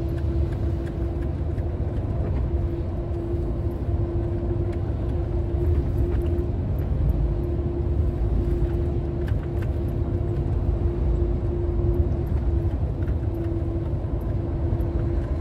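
Engine and road noise heard inside a truck's cab while driving: a steady low rumble with a steady hum running through it that drops out briefly now and then.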